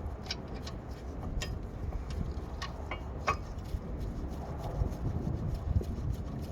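Scattered light clicks and taps of hand tools and brake parts being handled during a rear brake caliper job, over a steady low rumble.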